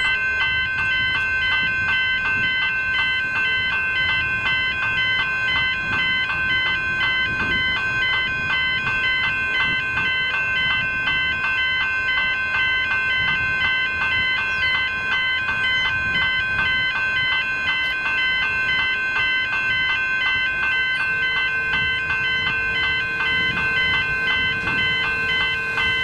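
Railway level-crossing warning alarms sounding continuously: the crossing's General Signals electronic bells ringing in a fast, even pulse over steady electronic tones, with the pedestrian swing-gate alarms mixed in. A lower steady tone joins near the end.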